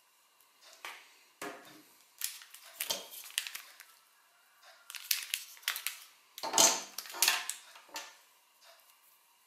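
Phone packaging being handled and unwrapped: irregular bursts of crinkling and rustling, loudest a little past the middle, over a faint steady background whine.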